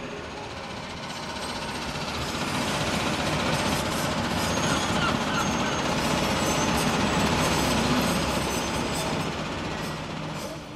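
Vehicle noise, a broad rumble that swells over several seconds and eases off near the end.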